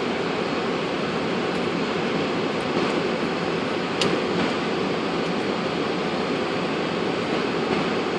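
Steady rushing cockpit noise of a Boeing 747-400 on the ground, air-conditioning airflow and running engines, with one sharp click about four seconds in.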